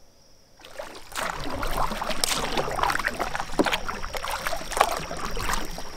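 Double-bladed paddle strokes moving a canoe through the water: blades dipping, splashing and dripping, starting suddenly about half a second in. A thin steady insect trill runs behind.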